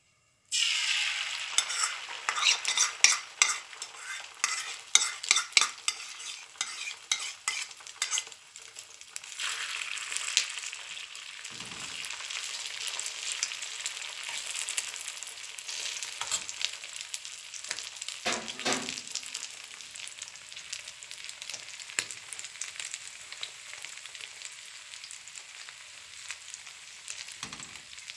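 Beaten eggs sizzling in a hot aluminium frying pan, starting suddenly as they hit the pan with loud crackling for the first several seconds, then settling into a steadier, softer sizzle as a metal spoon stirs them, with a few brief knocks of the spoon on the pan.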